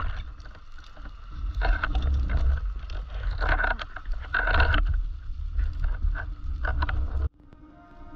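Underwater sound picked up by a GoPro in its housing as a spearfisher swims at depth: a low rumble with irregular surges of rushing water. It cuts off abruptly about seven seconds in, and background music takes over.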